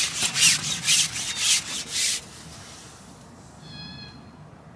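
Carbon fishing pole sliding back hand over hand against the angler's hands and the pole rest, making about six quick rasping strokes over two seconds, then stopping.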